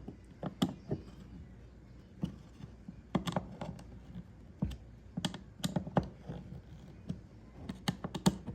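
Irregular light clicks and taps of parts and tools being handled on a workbench, about a dozen scattered through, with no steady machine sound.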